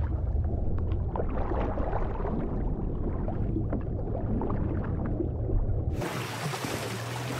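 Muffled underwater ambience: a low, dull rumble of moving water with faint gurgles and ticks. About six seconds in it cuts suddenly to a bright, hissing splash of water as African elephants wade through shallow swamp water.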